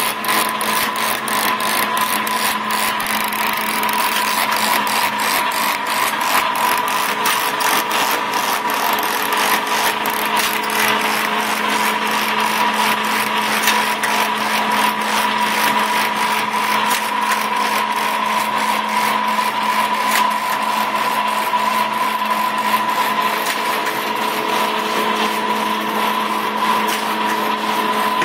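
Brackett model HD tape-binding (padding) machine running steadily as it carries pads through and applies pressure-sensitive tape to their spines: a constant mechanical hum with a steady whine and a regular clicking from the feed mechanism.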